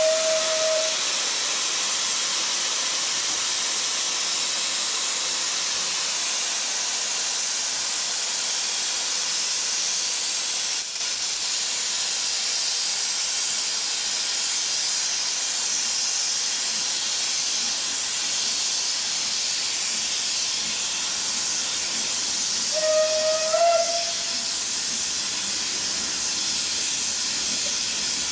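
Isle of Man Railway narrow-gauge steam locomotive letting off steam: a loud, steady hiss that starts suddenly, with a short pitched note at the start and again about 23 seconds in.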